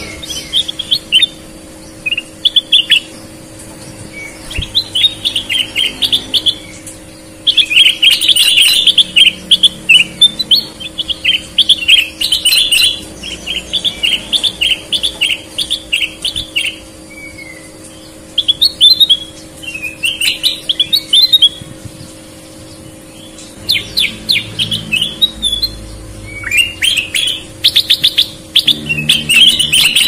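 Kutilang emas bulbul singing: bursts of rapid, chirpy warbling phrases, some short and one running about nine seconds, separated by brief pauses.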